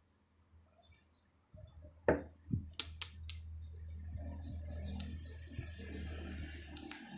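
Long-nose pliers clicking as their jaws work a thin earphone wire: a handful of sharp clicks spread over several seconds, a few in quick succession. A low steady hum starts about a second and a half in and sits under them.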